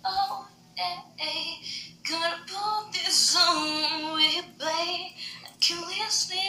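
A high voice singing in short phrases, with a long wavering held note about halfway through.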